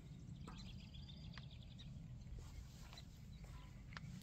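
Faint outdoor ambience: a steady low rumble with a few faint bird chirps and some soft clicks.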